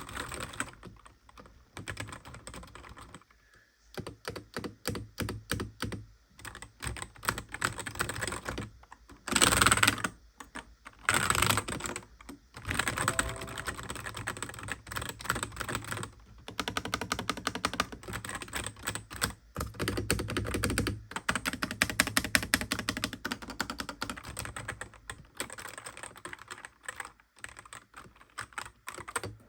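Typing on a computer keyboard: rapid runs of key clicks with short pauses between them, the loudest runs about nine and eleven seconds in.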